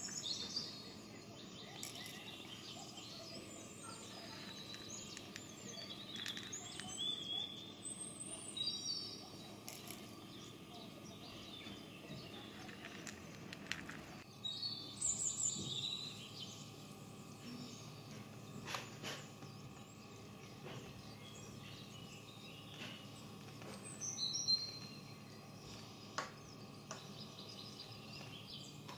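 Birds chirping now and then, in short high twittering calls, over a steady low background hum. A few soft single clicks come from dry lentils dropping from a small wooden scoop into a wooden bowl.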